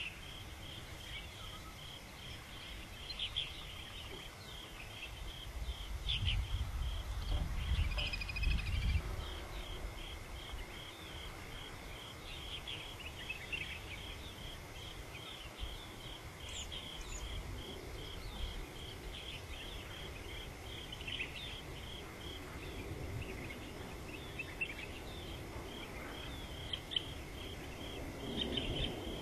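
Outdoor ambience: an insect chirping in a rapid, even pulse throughout, with scattered short bird calls and a low rumble about six to nine seconds in.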